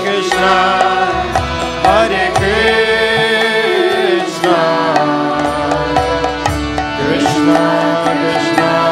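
Kirtan music: a gliding melody line over steady drone tones, with a hand drum keeping the rhythm.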